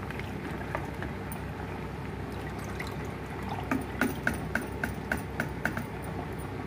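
Lentil dal simmering in a steel pot with moringa leaves added, giving a steady bubbling, with a quick run of small pops about halfway through.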